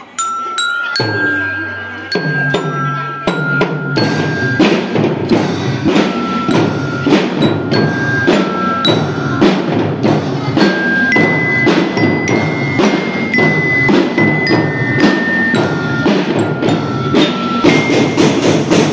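Children's drum band playing: glockenspiels struck with mallets ring out a melody over a steady beat of marching drums. The bells start almost alone, and the drums build in and are fully in by about four seconds.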